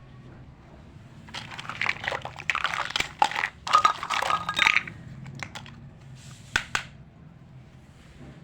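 Plastic packaging of a miniature toy kitchen set being handled: about three and a half seconds of crinkling and rustling with sharp clicks, then two brief clicks a little later.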